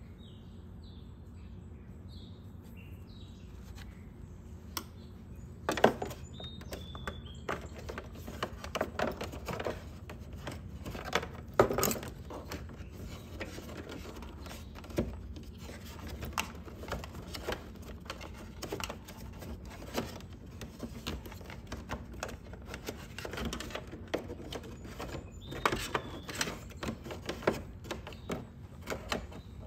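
Irregular clicks, taps and knocks of hands working plastic body panels and wiring in a scooter's battery compartment, starting about six seconds in. A few short bird chirps come in the first few seconds, over a steady low hum.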